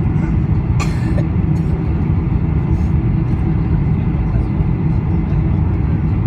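Steady low rumble of cabin noise aboard a Boeing 747-400 in flight, with a brief rustle about a second in.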